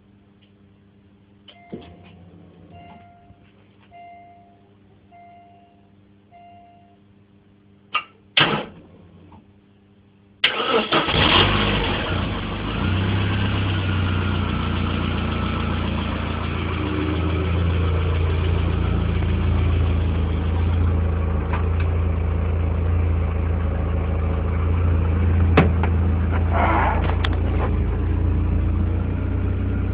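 Car engine remote-started from a smartphone: five short beeps, a few clicks and a brief burst, then about ten seconds in the engine cranks and catches and settles into a steady idle.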